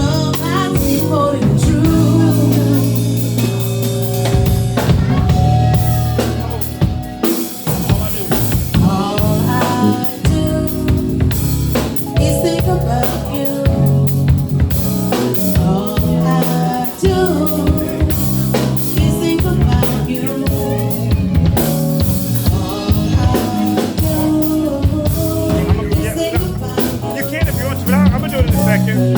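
Live band playing through the venue's sound system at a sound check, with a full drum kit (kick, snare and rimshots) and low bass notes.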